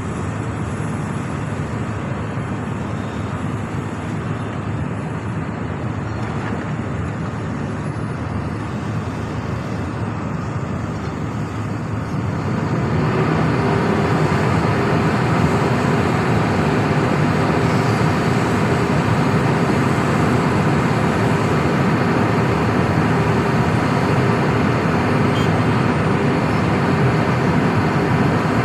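Heavy diesel engine of the earthmoving machinery running steadily, stepping up to a louder, higher-revving note about twelve seconds in and holding there.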